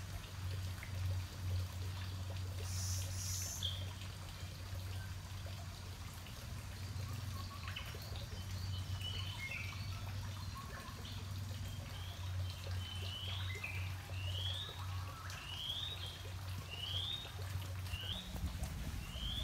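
Forest ambience: a steady low rumble throughout, and from about halfway in a bird repeating short rising chirps, roughly one every 0.7 seconds.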